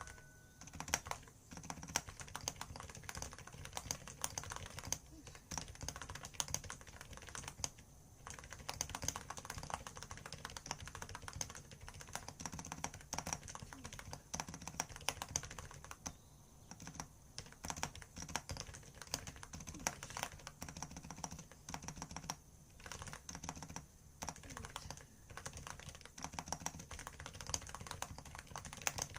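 Typing on a computer keyboard: a steady run of quick key clicks with a few short pauses.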